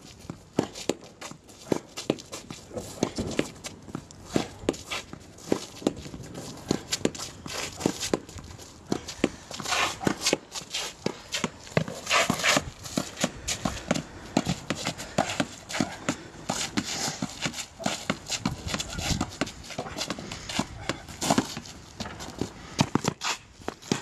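Tennis rally: balls struck by rackets and bouncing on the court, among quick footsteps, making a busy string of sharp knocks.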